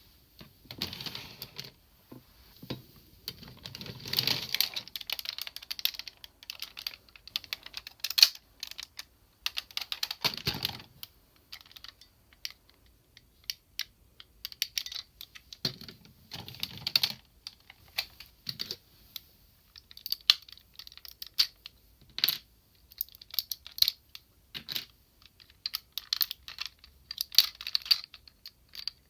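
Hard plastic parts of a DX Sirender transforming robot toy clicking and clacking irregularly as it is handled and transformed, with a few low knocks among the clicks.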